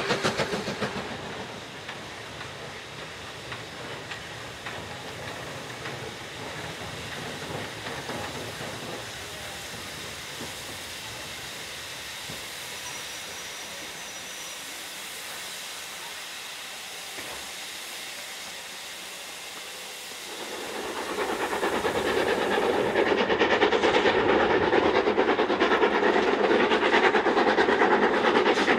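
Steam locomotive exhaust dying away in the first two seconds, then a long quieter stretch with a WD 8F 2-8-0 standing at a platform, steam hissing. About 21 seconds in, two double-heading steam locomotives come up working hard, a loud rapid beat of exhaust.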